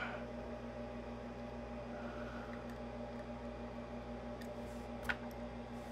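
Quiet room tone: a steady low electrical hum, with one small click about five seconds in.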